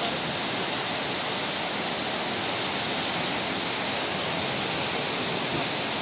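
Waterfall pouring down a cliff into a pool: a steady, even rush of falling water.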